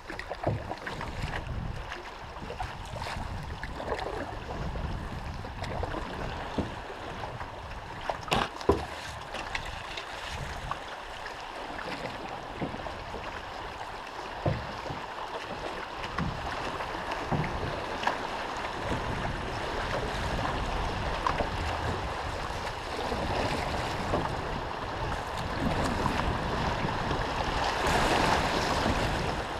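River water rushing and splashing around a canoe's hull as it runs through riffles, swelling louder near the end as the canoe enters choppier water. A few sharp knocks stand out, the loudest about eight seconds in.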